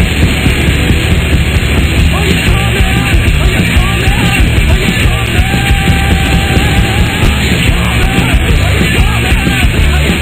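Loud punk rock music with a full band playing an instrumental passage without singing.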